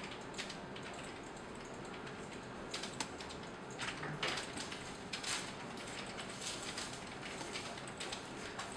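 Computer mouse clicking: short irregular clicks, some in quick pairs, over a steady background hiss.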